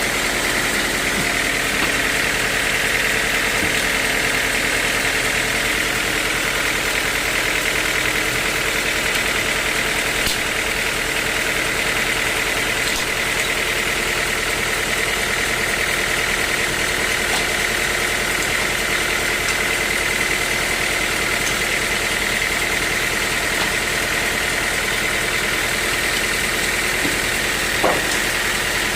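Sawmill machinery running steadily: a constant motor hum with a steady high-pitched tone over it, and one short knock near the end.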